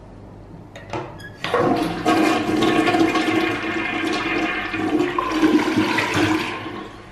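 Toilet flushing: a click of the flush mechanism about a second in, then a rush of water that fades away near the end.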